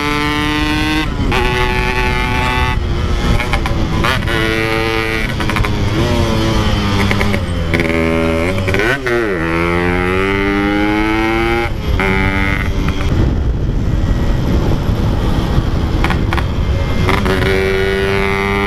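Yamaha RX-King 135 cc two-stroke single being ridden hard through a Packing Power aftermarket exhaust. The engine note climbs steadily in each gear and drops back at repeated gear changes, with a sharp fall and rise in pitch about nine seconds in.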